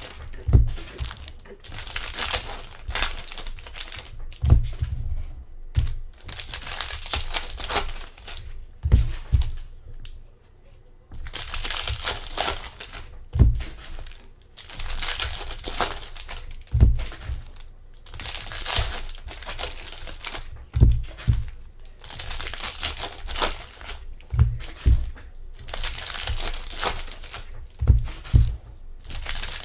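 Trading-card pack wrappers from a 2020 Select NFL box being torn open and crinkled, in repeated bursts every couple of seconds, with occasional short dull knocks between them.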